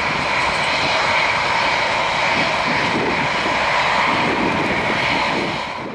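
Boeing 737-700's CFM56-7B turbofan engines at takeoff thrust as the jet lifts off and climbs away: a steady, loud jet noise with a high whine over the rumble. It fades out near the end.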